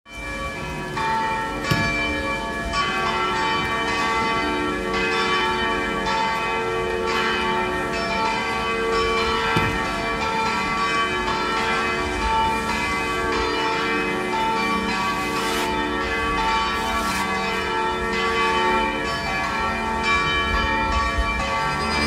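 Church bells ringing a continuous peal, many bells of different pitches struck in quick, overlapping succession.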